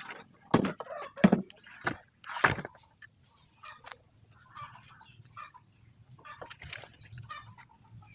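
Chickens clucking. Three sharp knocks come in the first few seconds and are the loudest sounds.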